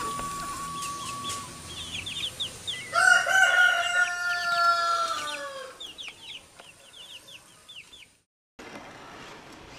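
A rooster crows once, a long call of about two and a half seconds starting about three seconds in, over many quick, high peeping calls from chickens. The sound cuts off abruptly a little after eight seconds, giving way to a quieter background.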